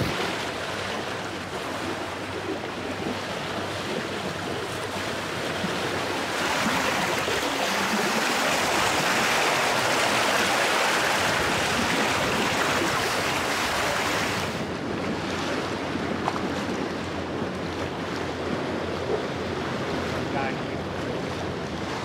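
Seawater rushing and splashing along the hull of a sailing catamaran under way, with wind buffeting the microphone. The rush of water grows louder and brighter for several seconds in the middle, then drops back.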